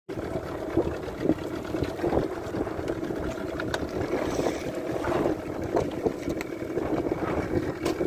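Steady noise of choppy water slapping against the hull of a small fishing boat, with a few light knocks.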